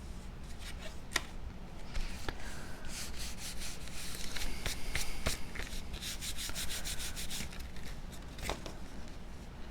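Cardstock being handled and folded shut by hand, with a few light taps and a run of quick rubbing strokes in the middle as the glued tabs are pressed down.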